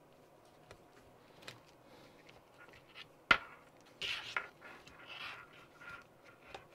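Hands fitting a brushless electric motor into a radio-controlled car's motor mount: one sharp click a little over three seconds in, then scratchy rustling and scraping as the motor and its wires are worked into place against the chassis.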